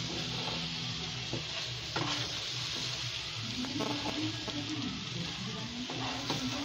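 Raw rice frying in ghee in a pan, a steady sizzle, stirred with a wooden spatula that scrapes the pan a few times.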